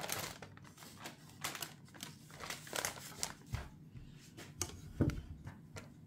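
Baking parchment crinkling and rustling in short bursts as it is peeled off rolled pie dough, with a soft low thump about three and a half seconds in and another about five seconds in.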